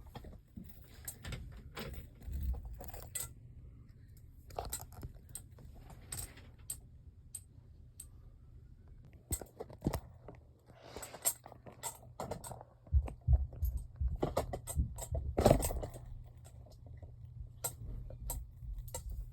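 Small plastic Lego pieces clicking and rattling as they are rummaged through and handled, in irregular bursts of clatter.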